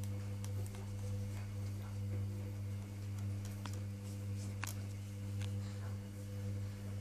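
A steady low hum with a few overtones, and faint scattered clicks over it, one sharper about two-thirds of the way through.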